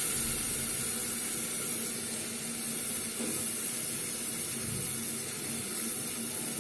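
Washed mashkalai dal sizzling and steaming in hot oil and spice paste in a pressure cooker, a steady hiss.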